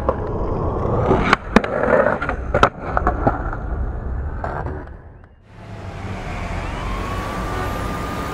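Skateboard wheels rolling on concrete, with sharp clacks of the board about one and a half and two and a half seconds in. The rolling fades out, then steady street noise takes over, with a faint tone near the end that rises and then falls.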